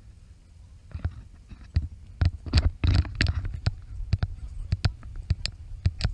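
Footsteps and camera jostling while walking on asphalt: irregular sharp taps and clicks over a low rumble of wind and handling noise on a body-worn action camera. The taps start about a second in.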